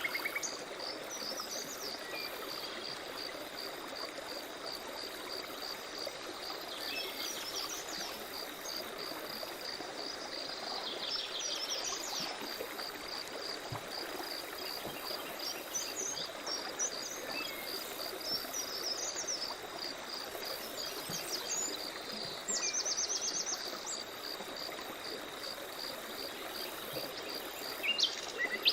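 Forest stream running steadily, with birds chirping now and then and a high call pulsing evenly throughout; a louder bird trill comes in about three quarters of the way through.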